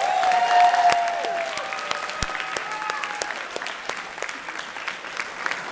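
Audience applauding, with whoops and shouts in the first second or so; the clapping stays dense and eases off a little toward the end.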